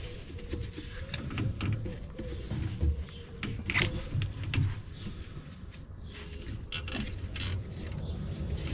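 Clinks and scrapes of a hand tool and gloved hands working on metal under a car, with a few sharp clicks, the clearest about four seconds in and again around seven seconds in, over a low rumble.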